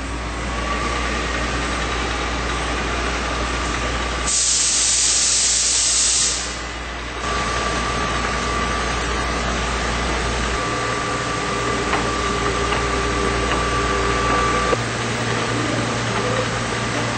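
Automatic pressure-sensitive labeling machine and conveyor running with a steady mechanical hum and a faint steady whine. About four seconds in, a loud hiss lasts about two seconds.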